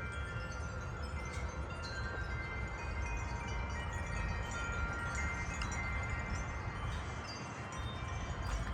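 Several wind chimes ringing in gusty wind, their overlapping tones sustaining and fading, over a low rumble.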